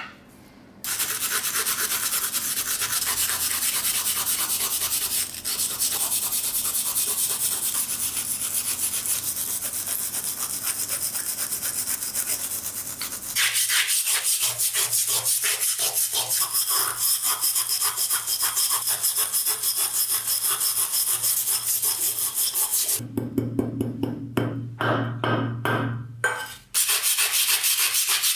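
Rust being scrubbed off old metal oil-lamp parts by hand with a wire brush and scraper: fast, continuous back-and-forth rasping strokes. The strokes turn choppy with short gaps about three-quarters of the way through.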